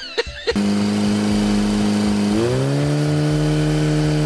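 An engine running with a steady drone, then revving up to a higher pitch about two seconds in and holding there.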